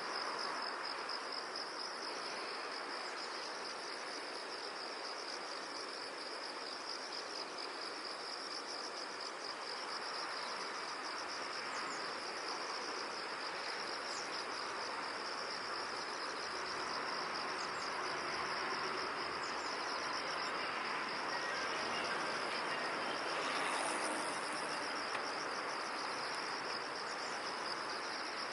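Crickets trilling in a steady, pulsing chorus over an even background hiss.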